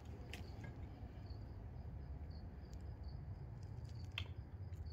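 An insect chirping at an even pace, about two short high-pitched chirps a second, over a steady low rumble. A few faint clicks come through, one just after the start and one near the end.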